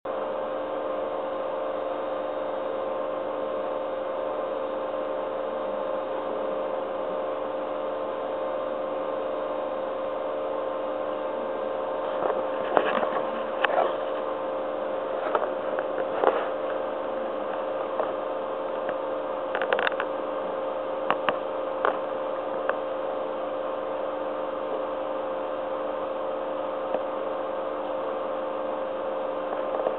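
Steady hum of aquarium equipment, holding several fixed tones. A scatter of irregular clicks and knocks comes in about twelve seconds in and dies away by about twenty-three seconds.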